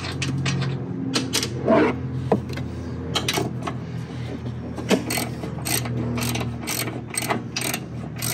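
Hand socket ratchet clicking in quick runs as a bumper-mount bolt is loosened, with a single metallic clank about two seconds in.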